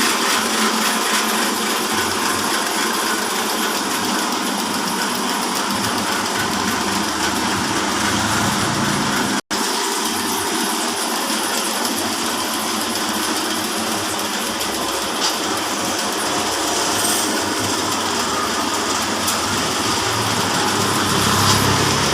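Horizontal band sawmill, driven by a 5 HP electric motor, running with its band blade sawing lengthwise through a hardwood log: a steady loud hiss and whir. The sound drops out for an instant about halfway through.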